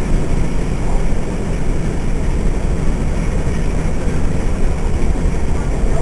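Steady rumble and running noise of a moving passenger carriage, heard from inside the carriage of a steam-hauled train, with the low end strongest.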